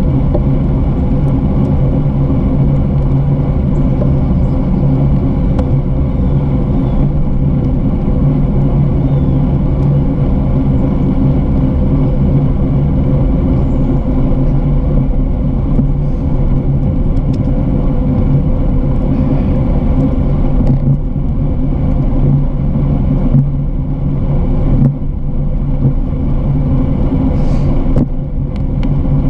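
Steady, loud rumble of a bicycle riding along a paved trail, picked up by a bike- or body-mounted camera: wind on the microphone and tyre-and-frame vibration, with a constant low hum underneath.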